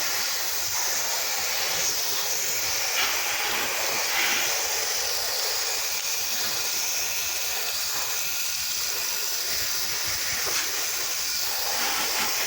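Steady hiss of a pressure-washer spray wand putting house-wash chemical onto the siding.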